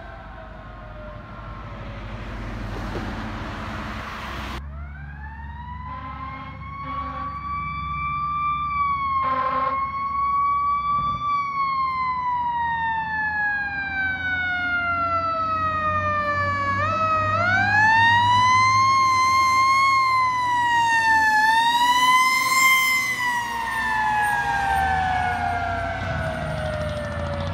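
Fire truck Q mechanical siren winding up, coasting down in a long falling wail, then winding up again, with short air horn blasts near the start, over the rumble of the truck engines passing.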